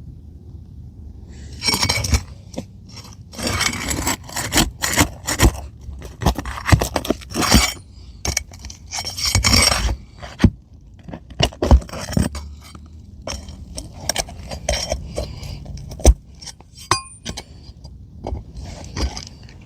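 A metal hand tool scraping under asphalt roofing shingles as they are pried up and their seal strips broken: a run of rough scraping strokes in the first half, then sharper clicks and clinks with shorter scrapes.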